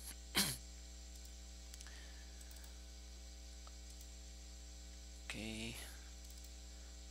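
Steady low electrical mains hum on the recording. About half a second in there is one sharp click. Near five seconds in there is a brief wordless vocal sound from a man.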